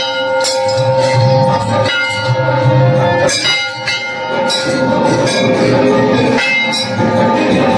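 Hindu temple bells ringing for the aarti, struck rapidly over steady ringing tones.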